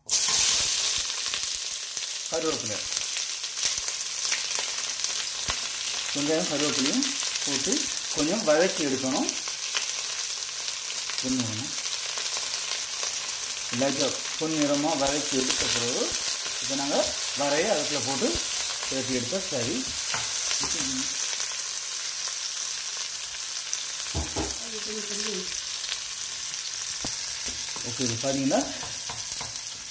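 Food frying in hot oil in a pan, sizzling steadily.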